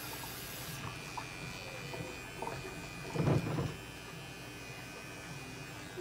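Small battery pet paw trimmer running steadily with a thin, high motor whine as it clips the hair between a cat's paw pads. A brief louder burst of handling noise comes about halfway through.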